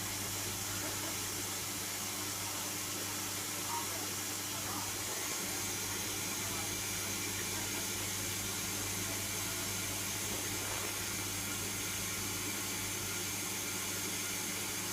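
Indesit 860B washing machine filling with water for its first rinse: a steady hiss of water running in, over a low steady hum.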